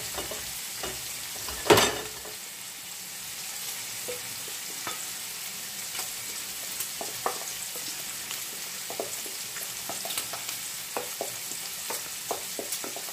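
Diced pancetta sizzling steadily in a frying pan, with light repeated clicks as eggs and grated parmesan are stirred together in a glass bowl. One sharp knock comes just under two seconds in.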